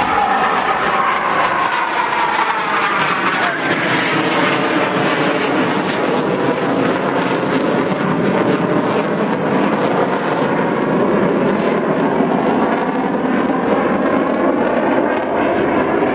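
Jet noise from RAF BAE Hawk T2 jet trainers manoeuvring hard overhead. It is loud and steady, and its tone sweeps slowly down and up as the aircraft move across the sky.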